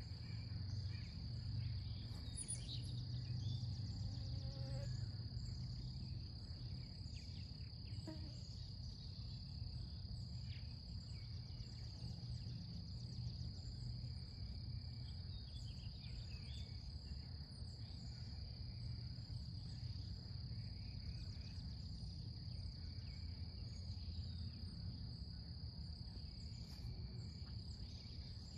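Steady, unbroken high-pitched insect chorus of crickets or katydids over a low steady rumble, with a few short, faint chirps scattered through.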